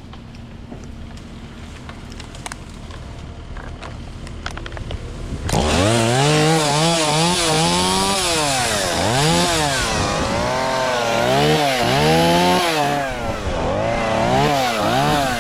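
Chainsaw: a low, quiet hum at first, then about five and a half seconds in the saw comes in loud and revs up and down over and over, about once a second.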